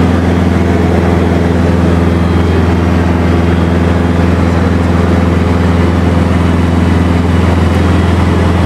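Ultralight tow plane's engine and propeller running steadily in flight, heard from inside the cockpit: a loud, even low drone with a hiss above it.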